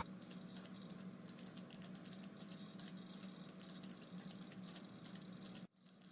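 Faint computer-keyboard typing: a steady run of quick, irregular key clicks that stops for a moment near the end.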